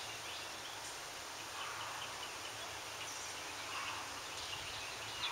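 Steady outdoor background noise, with faint high chirps scattered through it.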